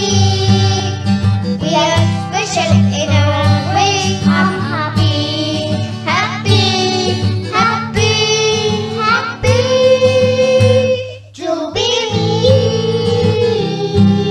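A children's choir singing a song together over guitar accompaniment, with a brief break in the music about eleven seconds in.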